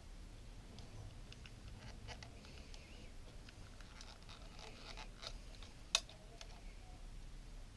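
Thin metal tool scraping and prying at the plastic front cover of a Lomography LC-A+ camera: scattered small scratches and clicks, with one sharper click about six seconds in.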